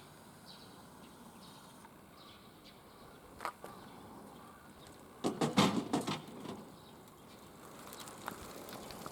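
Faint outdoor background with a few short bird chirps, then a quick cluster of knocks and rattles about five seconds in.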